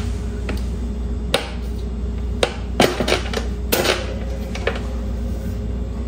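Plastic-rimmed wire front grille of a 1990s Electrolux table fan being unclipped and pulled off by hand: a series of irregular sharp clicks and knocks as the clips release and the grille knocks against the fan body.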